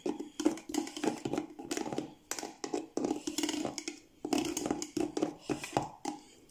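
A lemon being squeezed and juiced by hand: a dense, irregular run of short rubbing and knocking sounds.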